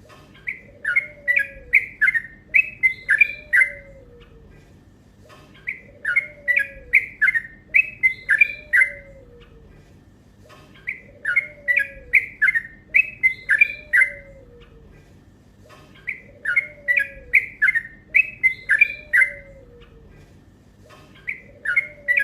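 Yellow-vented bulbul (trucuk) singing its long, fast-chattering song: phrases of quick, bubbly notes lasting about four seconds, repeated with short pauses about every five seconds, four times and starting a fifth near the end.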